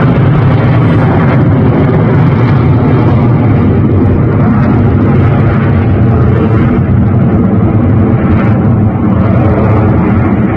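Jet engines of a formation of BAE Hawk trainer jets passing overhead, a loud, steady roar with no letup.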